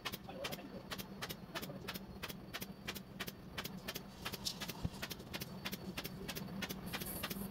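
Pneumatic upholstery staple gun firing in quick, even succession, sharp clicks about three a second, over a steady low hum.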